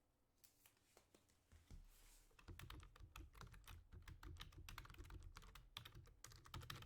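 Faint, rapid, irregular clicking and tapping, several clicks a second, starting about half a second in and getting busier and louder after about two and a half seconds.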